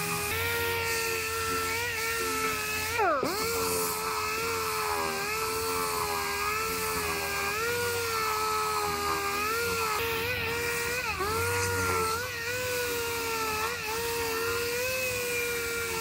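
Small hand-held orbital (DA) sander running against the steel of a freshly fitted quarter panel and rocker panel, sanding down the seams. It gives a steady high whine over a hiss, with the pitch dipping briefly a few times: once about three seconds in and a couple of times past the middle.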